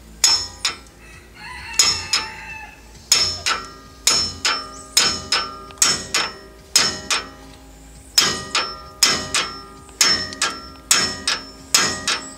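Hammer blows ringing on steel as a seized lower ball joint on a Daihatsu Rocky is knocked to break it free. There are about two dozen sharp strikes, mostly in quick pairs; the joint is still really tight and has not yet popped.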